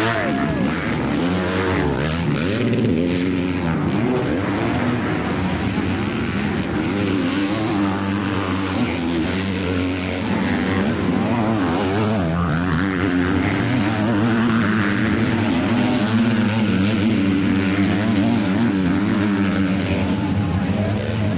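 Motors running steadily, several pitches held together with a wavering, warbling edge over them.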